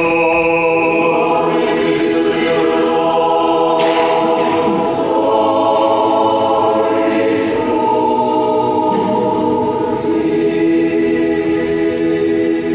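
Church choir singing unaccompanied Orthodox liturgical chant: several voice parts in long held chords that change slowly.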